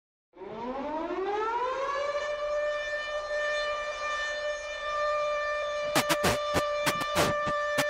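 Air-raid-style siren sample winding up in pitch for about a second and a half, then holding one steady wailing tone, as the intro of an electronic rap backing track. About six seconds in, a run of sharp, irregular clicks cuts across the held tone.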